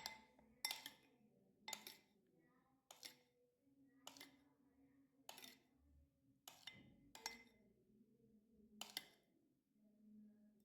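Faint, light clinks of a utensil against dishes, about nine separate strikes roughly a second apart.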